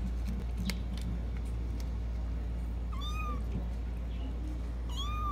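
A domestic cat meowing twice, two short high meows that rise and fall, about two seconds apart, the second near the end, over a steady low hum.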